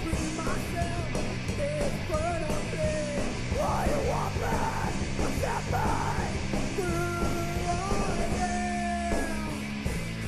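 Background rock music with a singing voice over a steady beat.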